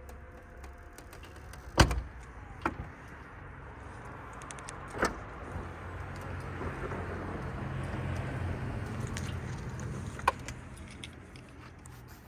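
A loud latch clunk about two seconds in, then a Chrysler Pacifica's power sliding side door running open with a motor whir that builds over several seconds, with a few clicks and a sharp click near the end.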